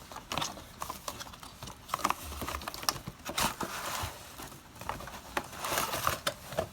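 A cardboard box being opened and its packaging handled: irregular clicks, taps and crinkly rustles of cardboard and bubble wrap.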